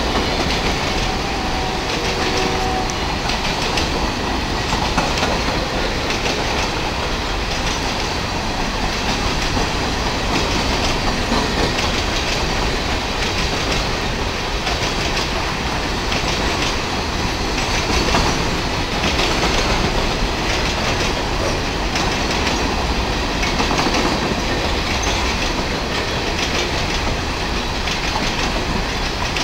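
A freight train of hopper cars rolling steadily past, the steel wheels rumbling and clattering over the rails.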